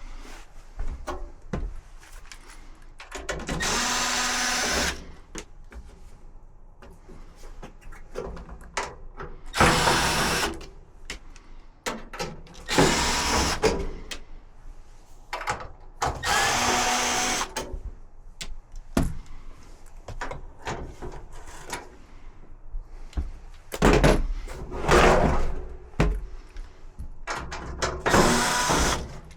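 Cordless drill/driver running in short bursts of one to two seconds, about six times, working screws on the Samsung dryer's panels. Knocks and clatter of parts being handled come between the bursts.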